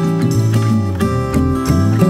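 Background music: plucked acoustic guitar with a bass line.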